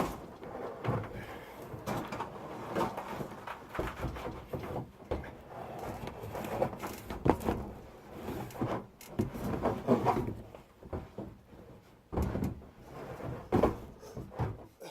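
Stones being tipped from a bag and shifted by hand into a container: an uneven run of rattles, scrapes and knocks.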